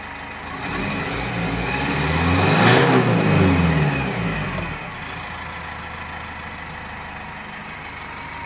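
Cummins ISF 2.8-litre four-cylinder turbodiesel of a 2013 GAZelle Next, heard from inside the cab, revved once from idle. The pitch climbs to a peak about three seconds in, then falls back, and the engine settles into a steady diesel idle.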